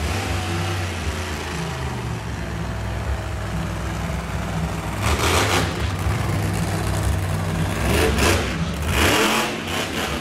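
Monster truck engine running hard and revving in surges as the truck drives the arena, with several louder bursts in the second half.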